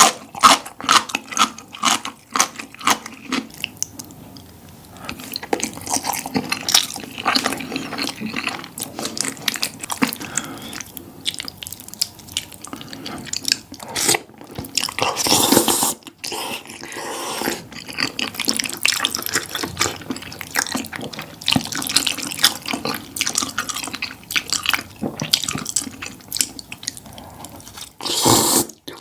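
Close-miked eating sounds: wet chewing and smacking of food in the mouth, a dense run of irregular clicks with a couple of louder, noisier stretches.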